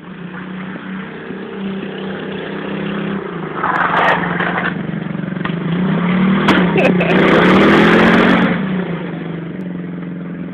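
Small quad bike (ATV) engine running as it is ridden, its pitch rising and falling as the throttle is worked. It is loudest as the quad passes close by, about six to eight seconds in, then settles back to a steadier note.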